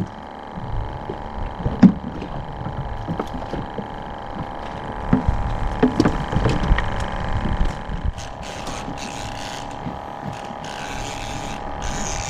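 A motor on a small aluminium fishing boat hums steadily, with scattered knocks and clatter of gear being handled on the boat. From about eight seconds in, a patchy rustling hiss joins.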